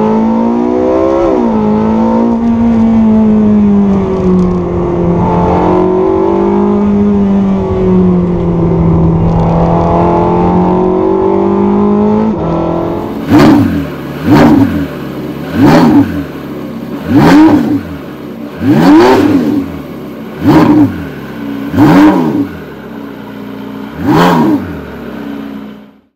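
Porsche 918 Spyder's V8 heard from inside the cabin, running at moderate revs with its pitch drifting up and down as it is driven. After a cut it is revved about eight times in quick sharp blips, each rising and falling back, before the sound fades out near the end.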